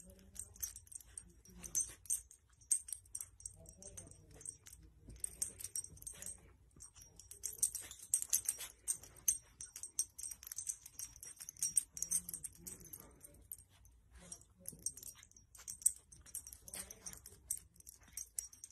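Faint, irregular rustling and scratching of a soft blanket as a small dog paws and pushes it, with scattered small clicks.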